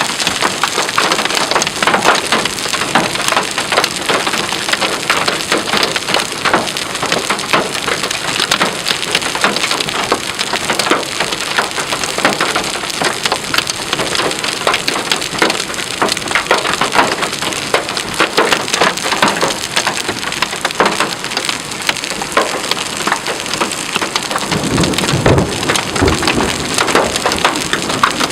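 Heavy thunderstorm rain pelting down as a dense, steady patter of sharp impacts. A low rumble of thunder comes in near the end.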